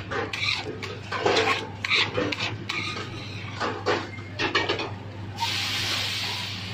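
Metal clinks and knocks of utensils at a flat iron tawa griddle. About five seconds in, a steady sizzling hiss starts suddenly as the hot griddle begins to steam.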